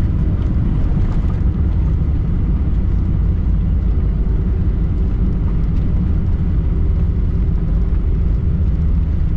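Steady cabin noise of a Boeing 747-400 in motion, its engines and airflow making a loud, even low rumble. A faint steady hum joins about four seconds in.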